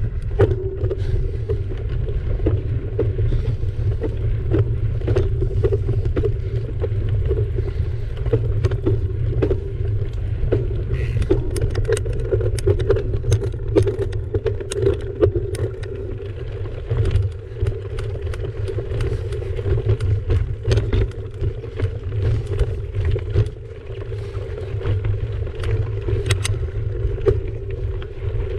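Mountain bike rolling along a dry dirt and stony trail: a steady low rumble from the knobby tyres, with frequent clicks and rattles from stones and the bike.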